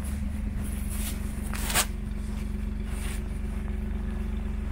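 A few footsteps crunching in fresh snow, the loudest about a second and a half in, over a steady low hum.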